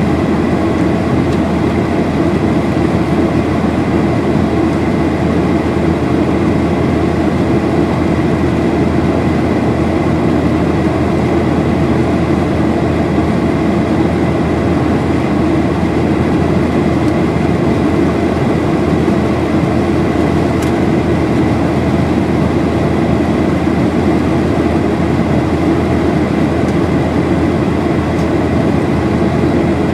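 Boeing 737-800 cabin noise in flight: a steady, unbroken drone of the CFM56 engines and rushing air heard from a window seat, with a thin steady high tone over it.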